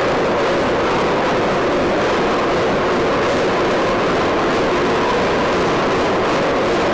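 A Nimitz-class aircraft carrier's heavy steel anchor chain running out at high speed, a loud, steady, continuous clattering rush that does not let up.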